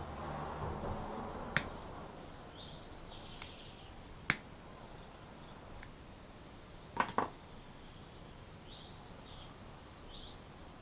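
Sharp clicks and taps from handling fishing hooks, a split ring and small tools: one about a second and a half in, another about four seconds in, and a quick double click near seven seconds. Birds chirp faintly in the background.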